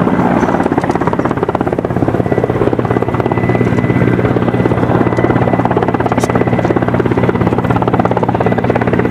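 An aircraft running close by: a loud, steady engine drone with a fast, even pulsing and a thin, steady high whine.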